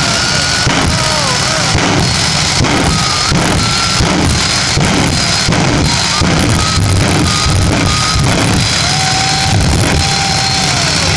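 Loud rock music with a drum beat and a held, falling melody line, over a steady high whine from the jet-powered fire truck's jet engines running at idle.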